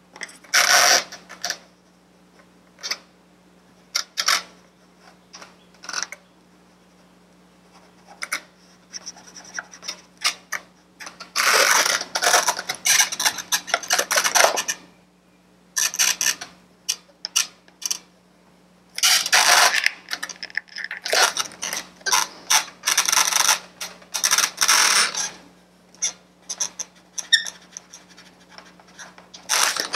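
Felt tip of a black Sharpie permanent marker scratching across an inflated latex balloon, first in a few short separate strokes, then in longer stretches of quick back-and-forth strokes as an area is coloured in.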